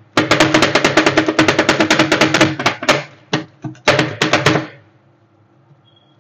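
Metal spatulas rapidly chopping and clacking on the steel cold plate of a rolled-ice-cream stand: a dense run of sharp strikes for about three seconds, then a few shorter flurries that stop a little before five seconds in.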